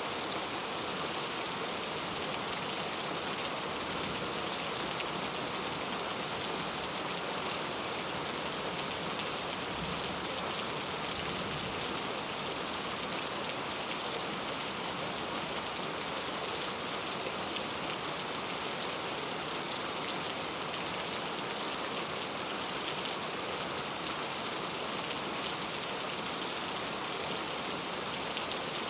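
Steady rain falling on a road, an even unbroken hiss of drops.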